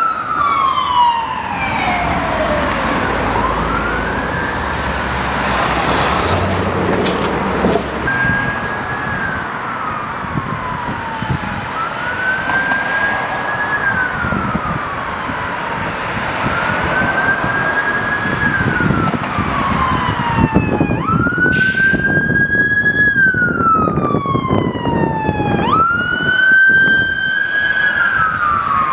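Emergency vehicle sirens on a wail, rising and then slowly falling in pitch about every four seconds, as fire department pickups pass on the road, with traffic noise underneath.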